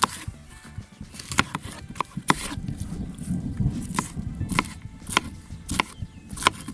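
Kitchen knife chopping a green bell pepper on a cutting board: single sharp knocks, roughly one every half second to a second, over a low rumble.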